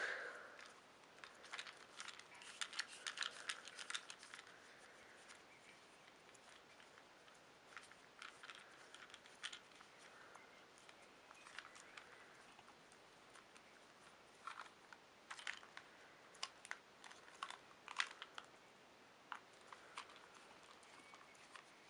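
Faint scattered clicks and rustles of hands handling a small plastic toy engine, in short clusters with quiet gaps between.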